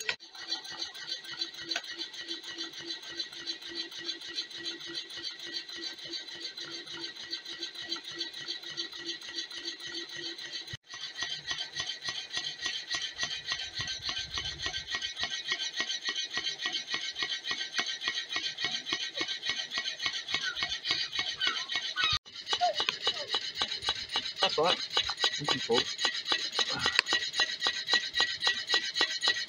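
Home-built alpha-type Stirling engine running steadily under its own power, a rhythmic rasping rub repeating with each turn of the flywheel over a steady high tone.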